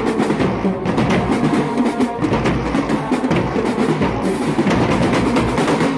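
College marching band playing, heard close to its drumline: marching bass drums and other drums beating a dense, continuous rhythm, with the band's horns sounding underneath.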